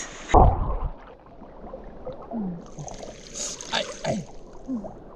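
River water sloshing and gurgling around someone moving in it, with a muffled knock about half a second in.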